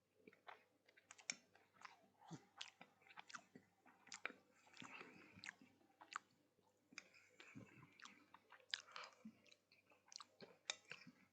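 A person chewing a mouthful of firm pan-seared saganaki cheese, with faint irregular mouth clicks and smacks.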